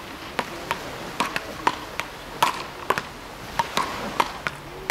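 Wooden beach-racket paddles hitting a small ball back and forth: a rapid run of sharp cracks, about two to three a second at uneven spacing, from more than one game at once.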